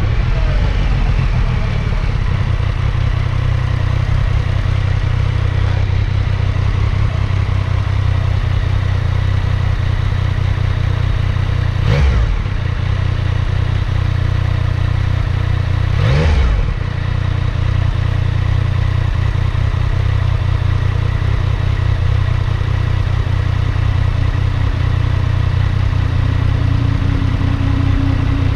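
Motorcycle engine slowing to a stop, then idling steadily. Two quick throttle blips come about twelve and sixteen seconds in.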